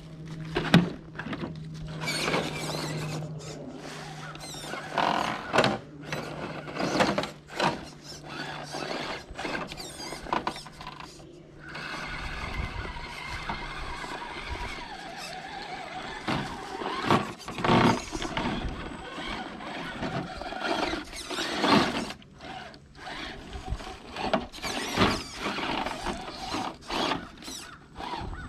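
Element Enduro Trailwalker RC crawler's electric motor and geared drivetrain whining in uneven bursts as the throttle is worked, with short knocks and scrapes from the truck crawling over rock.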